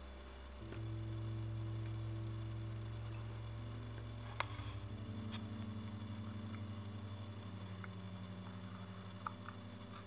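Slow ambient synth drone music: low held notes with overtones that shift to new pitches about a second in and again near the middle. A few faint clicks sound over it.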